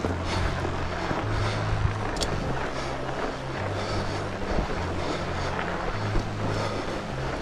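Fat bike with studded tyres rolling along a groomed snow trail, a steady low rolling hum, with wind buffeting the microphone.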